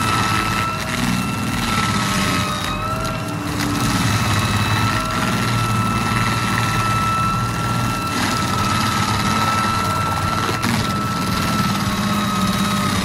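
A heavy machine's engine running steadily under load, a high whine held over a dense low drone.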